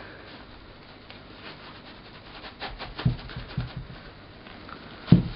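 Cloth rustling and sliding as a black fabric cover is pulled up off a tall speaker, with a few soft thumps about three seconds in and a sharp knock near the end.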